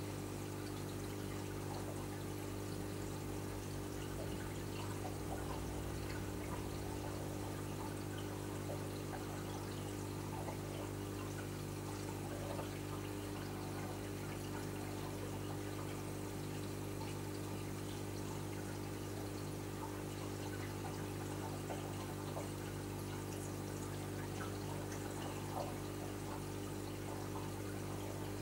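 Reef aquarium running: a steady trickle of circulating water over a constant low hum from its pumps.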